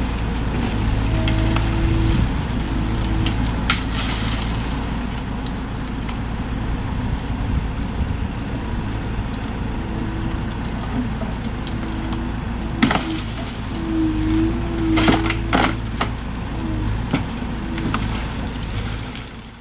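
Bobcat E42 mini excavator's diesel engine running under load, its hydraulics whining on and off as the boom works. Several sharp cracks of dead sassafras wood snapping and splintering come a few seconds in and again near the end.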